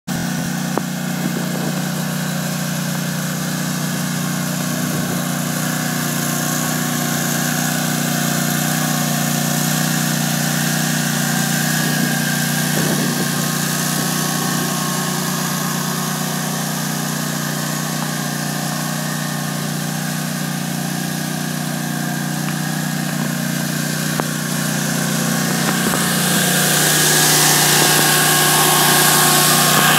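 Husqvarna MZ 5225 zero-turn mower's Kohler engine idling steadily, getting louder and hissier near the end.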